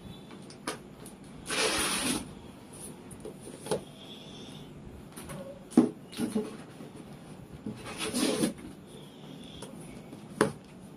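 Books being lifted out of a cardboard box and set down on a stack: two longer rustling, sliding sounds, about two seconds in and again near eight seconds, and a few sharp taps as books are laid down.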